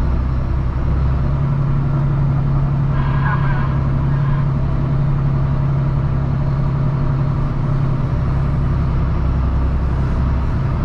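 Kenworth W990 log truck's diesel engine running at a steady pull on a dirt haul road: a constant low drone that holds an even pitch and level.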